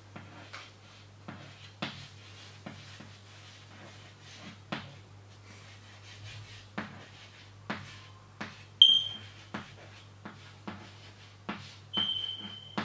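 Chalk tapping and scratching on a chalkboard as words are written, in short irregular strokes. Twice the chalk gives a brief high squeak, the louder one about nine seconds in and another near the end.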